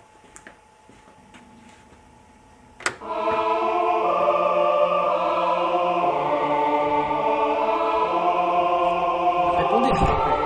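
Quiet room tone with a few faint clicks, then a sharp click about three seconds in, after which choral music with long held chords starts and plays on, changing chord every couple of seconds.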